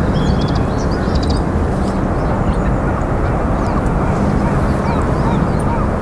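Outdoor wetland ambience: a steady low rumble throughout, with scattered short high chirps of small birds and faint distant waterfowl calls.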